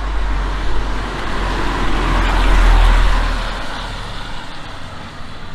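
A motor vehicle passing on a wet street: a deep engine rumble and tyre hiss swell to a peak about halfway through, then fade away, over the hiss of rain.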